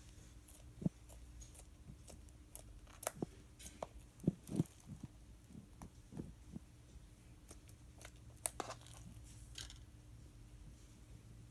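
Slime being squished and stretched by hand for ASMR, giving irregular sticky clicks and pops, with a cluster of louder pops about four and a half seconds in and another near eight and a half seconds.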